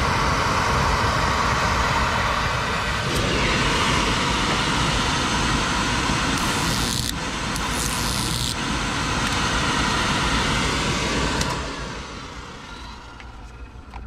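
Oil burner motor and fuel pump running with a steady whir while the pump is bled into a bucket. Around the middle, a high hiss joins it for about two seconds, broken briefly once: the igniter's spark arcing to a screwdriver held across the electrodes. The motor shuts off near the end and runs down.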